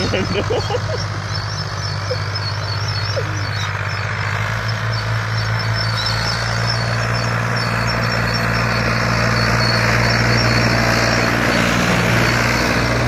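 Fiat 480 tractor's diesel engine running steadily under load as it pulls a tine cultivator through tilled soil. It grows louder as the tractor passes close, about two-thirds of the way in.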